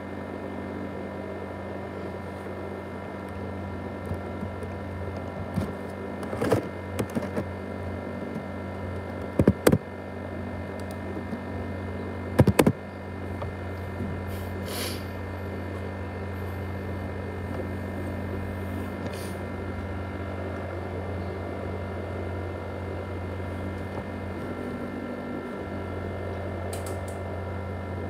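ASUS X543UA laptop's cooling fan running steadily, a hum with several high whining tones over it. A few sharp knocks and clicks come about six, nine and twelve seconds in.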